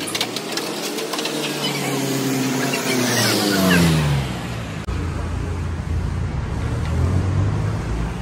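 A motor vehicle's engine going by on the street, its pitch rising and then falling away over the first four seconds. After a sudden break about five seconds in, a steady low rumble.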